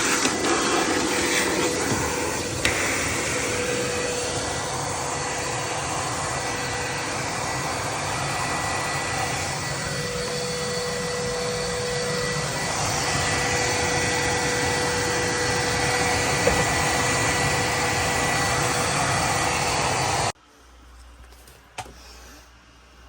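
Cordless wet/dry vac running steadily with a faint whine, sucking condensate water out of a clogged PVC drain line. It shuts off suddenly about twenty seconds in, followed by a faint click.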